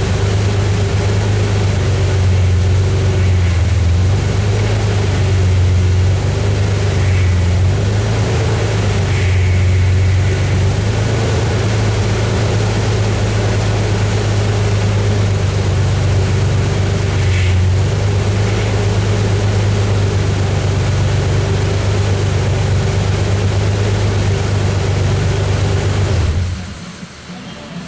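1999 Ford Explorer's 4.0 V6 engine idling steadily, run to bleed air out of the freshly refilled power steering system; it cuts off abruptly shortly before the end.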